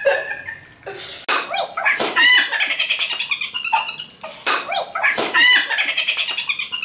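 Boys laughing hard in high-pitched, squealing peals that come in repeated bursts, with a few sharp knocks mixed in.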